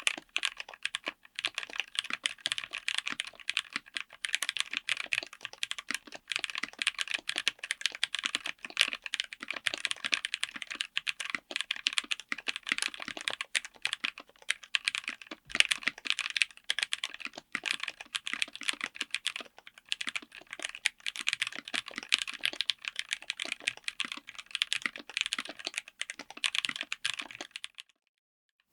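Fast typing on a mechanical keyboard with Jerrzi Violet tactile switches, built as a DZ60 board on an FR4 plate in a Tofu60 aluminium case: a dense, continuous stream of key clacks that stops shortly before the end.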